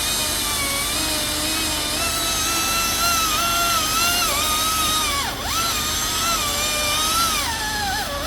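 Small battery-powered chainsaw running under load as it cuts through the dead tree's wood, a steady high whine. Its pitch sags sharply twice, about five seconds in and near the end, as the chain bites and bogs.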